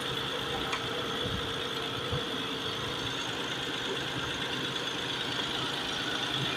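Hyundai Azera's G6DE V6 engine idling steadily; the engine is due for an overhaul for white smoke and a misfire.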